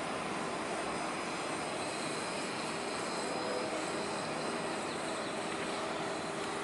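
Steady outdoor background drone: an even rushing noise with faint steady hum tones in it, like a distant engine, unchanged throughout.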